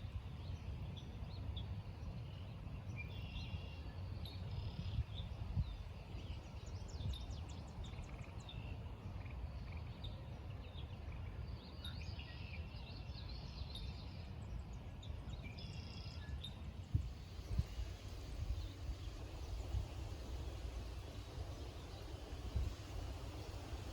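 Small birds chirping and singing in short scattered calls over a constant low rumble.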